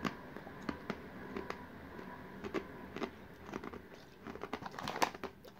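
Someone chewing a crunchy Korean sweet-potato-shaped snack: light, irregular crunches, coming thicker near the end.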